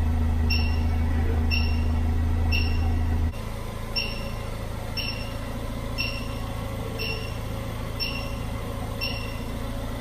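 Pandora Light Pro V2 car alarm beeping steadily with a high-pitched tone about once a second, over the Ford Focus RS's 2.3-litre turbocharged four-cylinder engine idling. This is the anti-hijack warning that the immobiliser tag has been lost. A loud low hum drops away about three seconds in.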